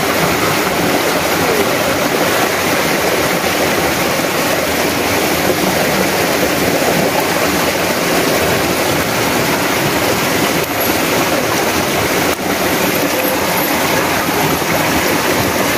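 Steady rush of a stream flowing over rocks, an even dense noise, with two faint knocks in the second half.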